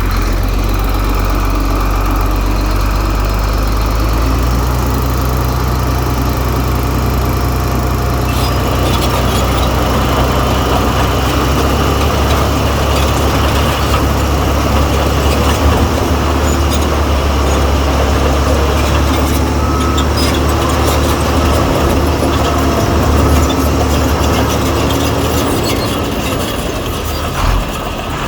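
Heavy diesel earthmoving machinery running steadily. Its deep engine note steps up and down several times, with clattering knocks over it from partway through.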